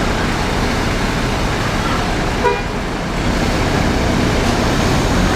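Steady, loud noise of bus engines and traffic, with one short horn toot about halfway through.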